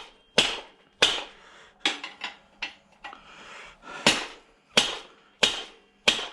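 About ten sharp hammer blows on a seized control-arm bolt, each with a short ring, as it is beaten to drive it out of its metal bushing. The bolt stays seized.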